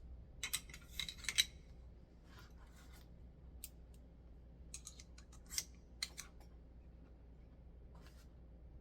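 Small metal parts of an AF Romulus 2011-style pistol clicking and scraping as it is reassembled: a quick cluster of sharp clicks in the first second and a half, then scattered single clicks through the rest.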